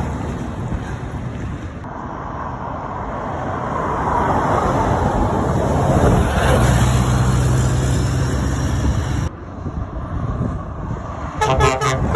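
Diesel lorries driving up and past, engines running with a steady low note in the middle. Near the end a truck air horn gives a quick burst of short toots.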